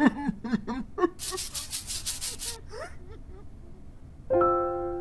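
Cartoon sound effects: short squeaky character vocal noises, then a rapid run of scratchy rubbing strokes lasting about a second and a half. A held musical note comes in near the end.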